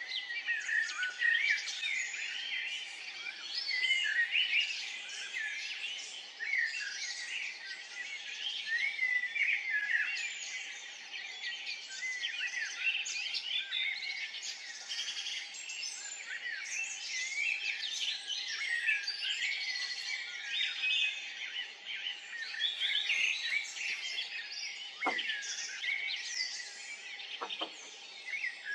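Many small songbirds chirping and singing at once, their short calls and trills overlapping without a break, with a faint steady hum beneath.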